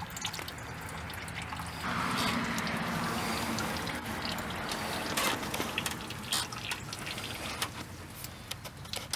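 Coolant trickling out of a water pump's bleeder hole, starting about two seconds in and lasting a couple of seconds, the sign that the cooling system is filled to the bleeder. Light clicks and taps follow as the bleeder plug is handled.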